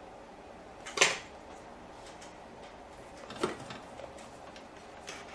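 Two short hard knocks of small tools being handled or set down on the workbench, a louder one about a second in and a weaker one about two and a half seconds later, over steady background noise.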